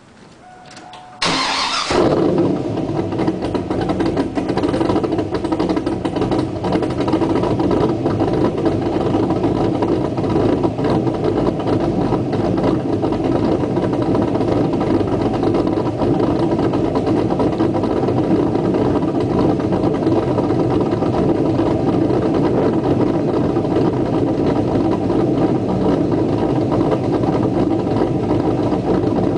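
Pontiac Trans Am's 5.7-litre V8, fitted with an untuned Comp Cams camshaft (228/230 duration, .571/.573 lift, 112° lobe separation), starting up about a second in. It then settles into a steady idle.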